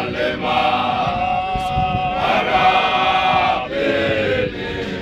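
A chorus of Zion Christian Church men singing a hymn together without instruments, in long held notes that shift every second or so, with a couple of faint sharp knocks.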